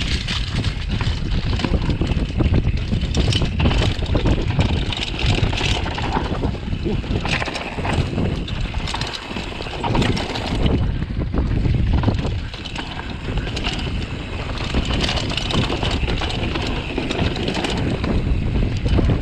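Wind buffeting the microphone of a downhill mountain bike's on-board camera, with the tyres running over a dry dirt trail littered with dead leaves and steady knocks and rattles as the bike crosses bumps at speed.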